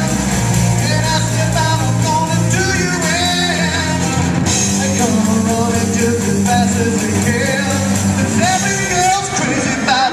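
Live rock band with electric guitars and a drum kit playing loudly in an auditorium, heard from the audience. The low notes drop away right at the very end.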